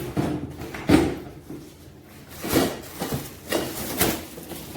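Knocks, scrapes and rustling of mower parts being handled and lifted out of a cardboard shipping box: several separate bumps, the loudest about a second in.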